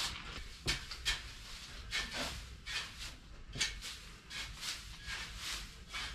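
A string of irregular knocks, clunks and rubbing, about two a second, as objects are handled and moved about in a small room.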